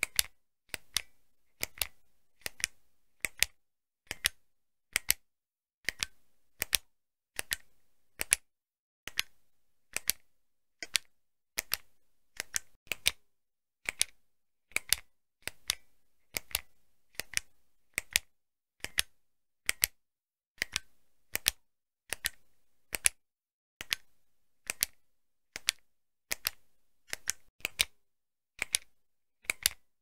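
Retractable pen's push button clicked over and over, each press giving a quick pair of sharp clicks, roughly one pair a second.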